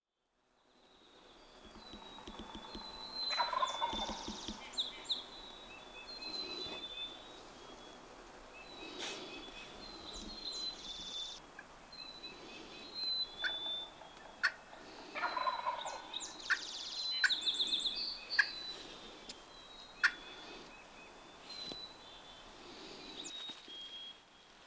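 Wild turkey gobbling twice, about three seconds in and again about fifteen seconds in, with songbirds chirping throughout and a few sharp clicks.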